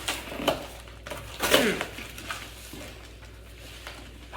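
Cardboard packing being handled and pulled out of a box: a few knocks and rustles, with a loud squeaky scrape that drops in pitch about a second and a half in, then quieter handling.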